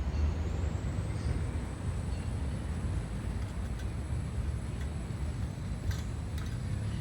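Steady low rumble, with a faint high-pitched whine above it and a few light clicks about six seconds in.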